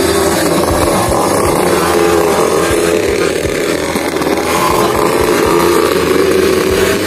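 50cc two-stroke kids' dirt bike engines running, their pitch rising and falling as the riders work the throttle.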